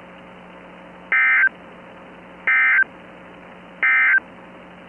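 Emergency Alert System end-of-message signal: three identical short bursts of warbling SAME digital data tones, each about a third of a second long and about 1.4 seconds apart, over a steady low hum and hiss. It marks the end of the alert broadcast.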